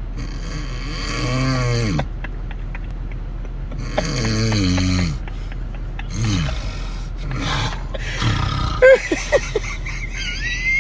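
A person snoring: two long, rasping snores, each falling in pitch, followed by several shorter ones.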